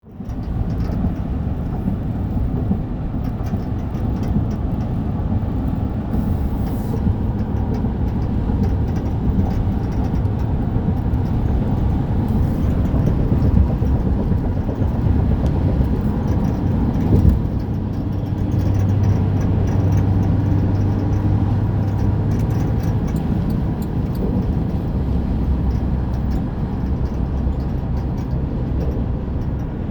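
Driving noise from a 2008 GMC Sierra 1500's 5.3-litre V8 pickup: steady engine and road noise with a light rattle that comes only when the truck is moving, plus one sharp knock about seventeen seconds in. The owner can't find the source and wonders whether a pulley or the belt is to blame.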